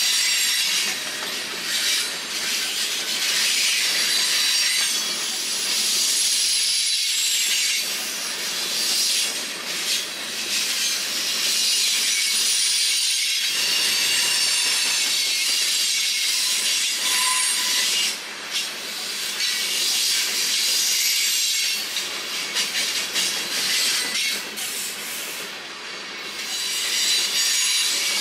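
Railroad cars rolling past on the rails, their steel wheels squealing in a continuous high-pitched screech and hiss that dips only briefly now and then.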